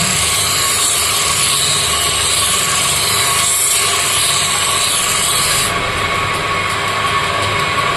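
A motor-driven sharpening wheel running steadily with a whine while a scissor blade is ground against it, giving a harsh high grinding hiss. About six seconds in the grinding hiss drops away, as if the blade is lifted off the wheel, and the motor runs on.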